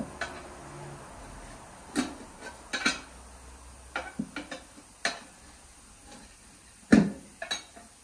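Irregular metallic clanks and knocks as a new tire is worked by hand onto a small lawn mower wheel, metal tools and the rim knocking together. The loudest knock comes about seven seconds in.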